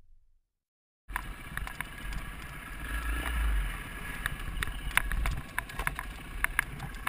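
KTM Freeride 350 dirt bike's four-stroke single running low as it is ridden slowly through dense bracken, with a low rumble of wind on the camera microphone and scattered sharp crackles of ferns brushing and snapping against the bike. It starts about a second in.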